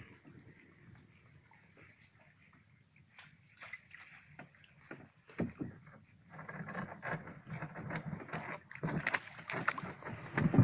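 Night insects chirring steadily in high tones, with irregular splashing and sloshing of water that starts about halfway in and grows busier and louder toward the end.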